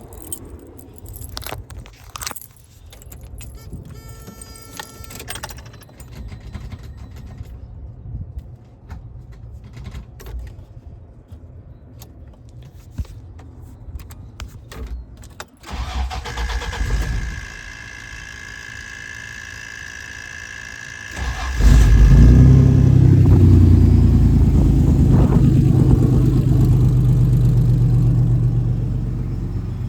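Keys jangling and clicking, then a steady high whine as the ignition is switched on. A little over two-thirds of the way in, the truck's engine starts and keeps running loudly at a steady idle.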